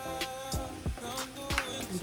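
R&B/hip hop song playing, with sung melody over a steady beat of kick drum and hi-hats.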